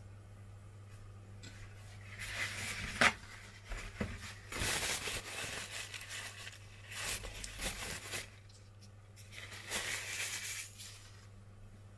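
Paper rustling and crinkling in several bursts as hands work a paper towel against puff pastry parcels on baking parchment, with one sharp tap about three seconds in.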